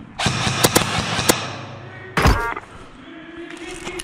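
A loud rustling clatter with several sharp clicks, then a heavy thud about two seconds in that rings briefly.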